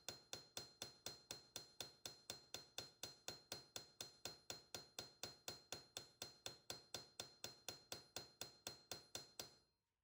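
Ball peen hammer tapping a metal pin against an anvil in a fast, even rhythm of about five light strikes a second, with a thin metallic ring; the pin is being peened to spread its end and lock the guard onto the knife. The tapping stops near the end.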